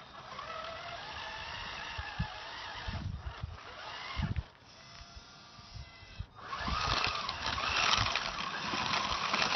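Electric motor and gearbox of a Tamiya F350 High-Lift RC truck whining as it drives, the pitch rising and falling with the throttle. It eases off about halfway through, then runs harder and louder near the end, with a few low knocks from the tyres and chassis.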